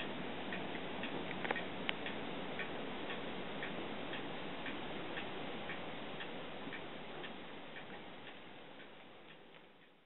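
A clock ticking evenly about twice a second over a steady rushing noise; the whole fades out near the end.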